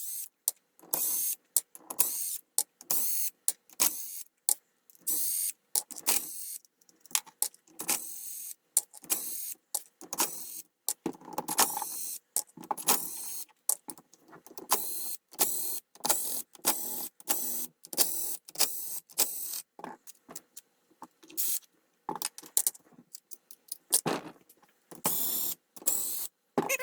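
Hand ratchet wrench backing out the 6 mm bolts of an engine side cover, in repeated short strokes of clicking with brief pauses between bolts.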